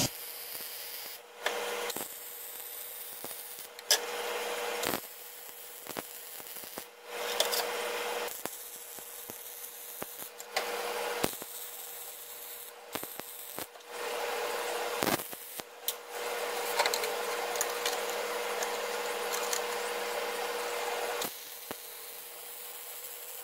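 MIG welding steel exhaust adapters onto a catalytic converter with a Miller Millermatic 140 feeding .030 ER70S-6 wire: the arc crackles and sizzles in runs of one to six seconds, stopping and restarting between short beads. A steady hum continues underneath.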